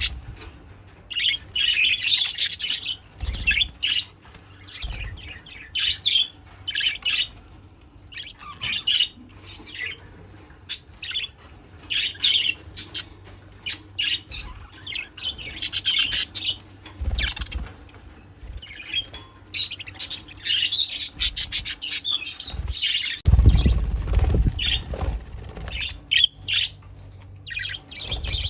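Budgerigars chirping and chattering in quick, irregular bursts of high, warbling notes. A low rumble comes in for a couple of seconds about two-thirds of the way through.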